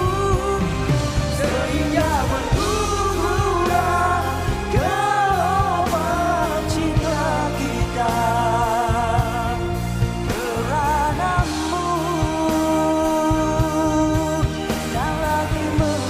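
Live band playing a pop ballad, with a wavering melodic lead over sustained chords, bass and drums, and singing.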